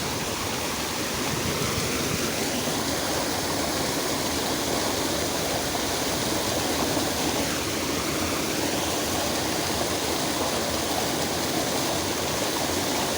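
Flowing water of a small river or channel, rushing steadily and evenly.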